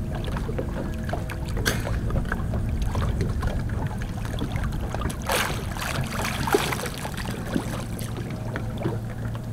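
Water splashing and lapping beside a boat as a snorkeler kicks her fins at the surface, over a low steady hum. The louder splashes come near two seconds in and again a little past five seconds.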